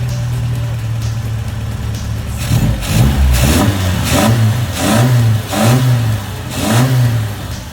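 Triumph Spitfire's four-cylinder engine idling steadily, then revved in a series of about five quick throttle blips, each rising and falling in pitch, from about two and a half seconds in.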